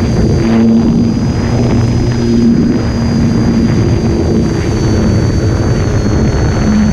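Small solar-powered model airplane in flight, heard from its onboard camera: loud wind rushing over the microphone, with the electric motor and propeller giving a thin, steady high whine that dips slightly in pitch about five seconds in, and a lower buzz that comes and goes.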